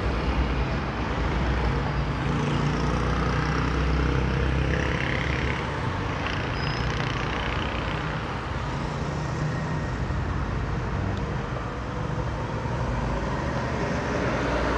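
Steady low background rumble with no clear events.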